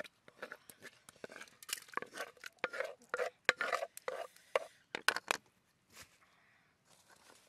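Crunching, tapping and clattering of food and utensils: a busy run of sharp clicks and crackly scrapes that thins out about five and a half seconds in.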